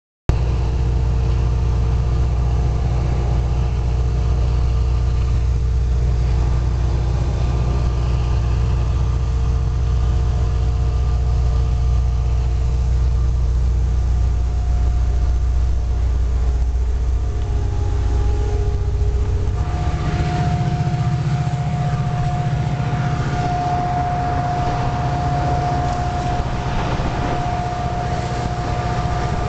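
Diesel locomotive running, heard from inside the cab of a distributed-power unit on a moving freight train: a steady low engine drone. About two-thirds of the way through, the drone shifts higher and a steady high whine comes in.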